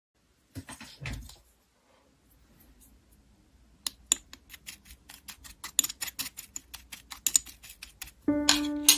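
Slime being pressed and worked by hand, giving a run of small sharp clicking pops, about four to five a second, after a couple of brief handling noises near the start. Piano music comes in near the end.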